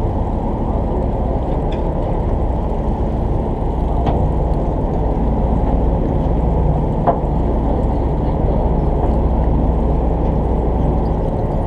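Party boat's engine running with a steady low drone, with a couple of faint knocks about 4 and 7 seconds in.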